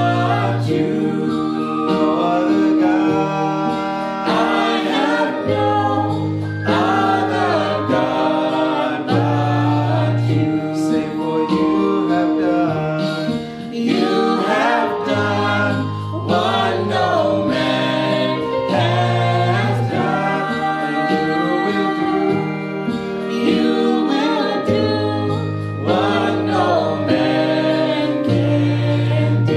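Mixed vocal quartet, three men and a woman, singing a gospel worship song in harmony over instrumental backing, with held bass notes that change every couple of seconds.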